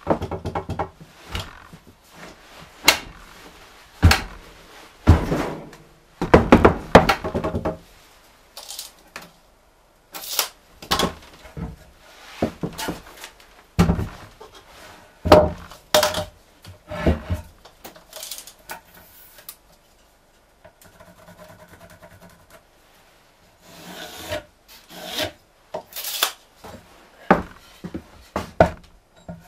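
Wooden boards and a rough-edged slab being handled on a wooden bench: irregular knocks, thuds and scrapes of wood against wood, with a quieter lull a little past the middle.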